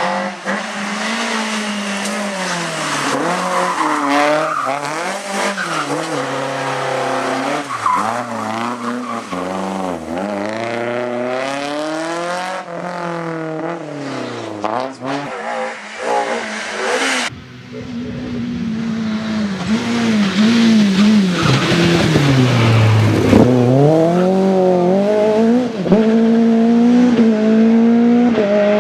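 BMW M3 rally car's engine revving hard, its pitch climbing and falling again and again through gear changes and lifts, with tyres squealing in skids. The sound changes abruptly about two-thirds through to another run, where the revs sink low once and then climb to a steady high pitch.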